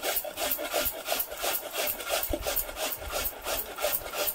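Peeled raw potato rubbed up and down a hand grater: steady, even grating strokes about three times a second.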